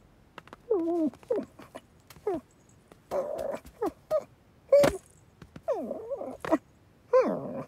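Cartoon cat vocal effects: a run of short grunts, growls and mews that slide up and down in pitch, made as the cat struggles, with a few sharp clicks between them.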